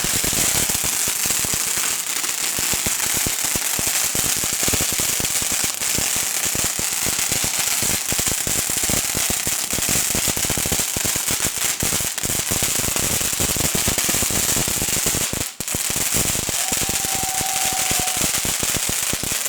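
Firework crackling continuously: a dense, rapid run of sharp pops over a hiss. A brief steady tone sounds once near the end.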